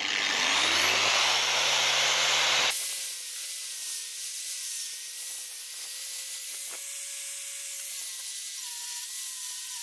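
Angle grinder with a wire brush wheel winding up and scrubbing rust off old steel rebar. It is loudest for the first few seconds, then settles to a steady whine with a rasping brush noise.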